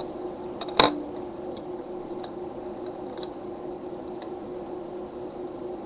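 A single sharp click about a second in from handling small hardware while a device is being taken apart, over a steady low electrical hum with faint ticks about once a second.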